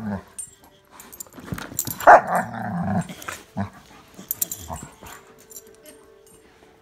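A German Shepherd and a Boxer growling as they play-fight, with one loud growl about two seconds in and shorter growls around it, among scattered short clicks; it quietens in the last couple of seconds.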